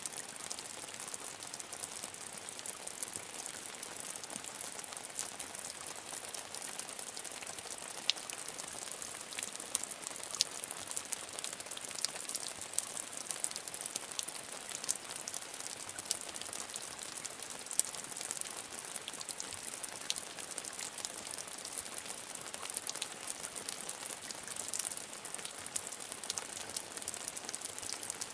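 Steady medium rain falling, a dense patter of raindrops with many small sharp drop ticks scattered through it.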